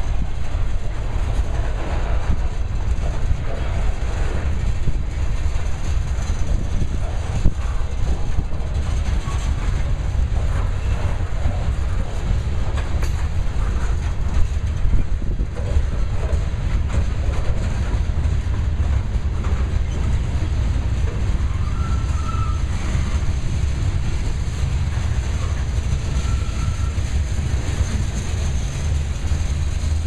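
A freight train's covered hopper cars and tank cars rolling past: a steady low rumble of steel wheels on the rails.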